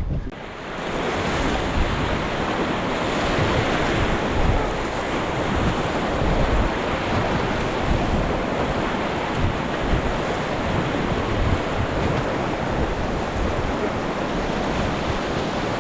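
Steady rushing and splashing of river whitewater around a raft, with wind buffeting the microphone, building up about a second in.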